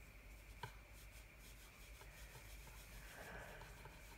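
Faint brushing of a small paintbrush stroking blending solution over coloured-pencil work on paper, with a few soft clicks.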